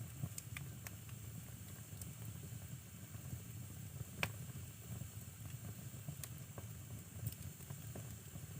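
Firewood burning in a fireplace: a steady low rumble and hiss of the flames with scattered sharp crackles and pops, the loudest a little over four seconds in.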